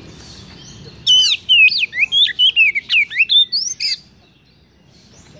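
Oriental magpie-robin singing: a loud burst of rapid, sweeping whistled notes that starts about a second in and lasts about three seconds.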